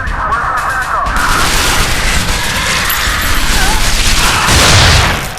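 Layered cinematic sound effects: wavering high sounds at the start, then a dense roar of noise that swells to a deep boom, its loudest point, about a second before the end, and then cuts away.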